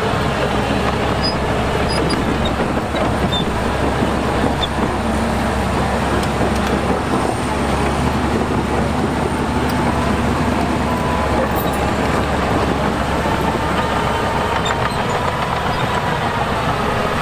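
Diesel engines of heavy earthmoving machinery, a bulldozer and dump trucks, running steadily under load.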